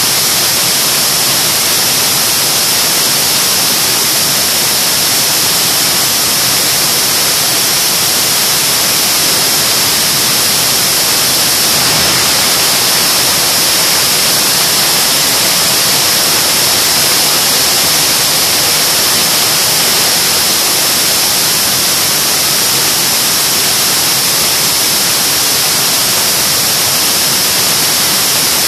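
General Electric J79 axial-flow turbojet engine running steadily on a test stand: a loud, unchanging jet roar with a strong high-pitched hiss.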